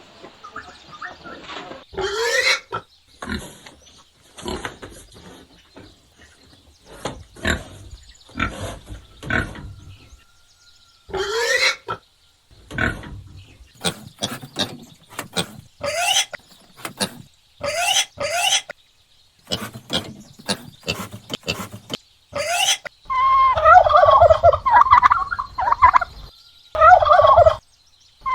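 Farm birds calling: a series of short, separate calls, several sweeping sharply upward in pitch, then from about 23 seconds in, loud, rapid warbling calls repeated several times.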